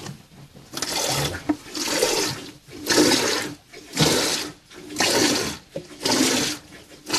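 A goat being milked by hand: jets of milk squirting into a bucket in regular spurts, about one a second.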